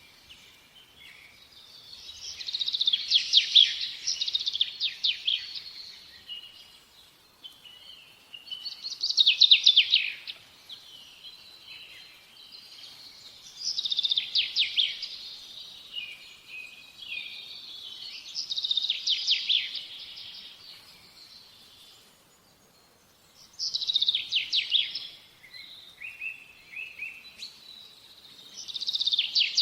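A songbird singing, repeating short phrases of quick high notes, each lasting one to three seconds, about every four to five seconds, with quiet gaps between them.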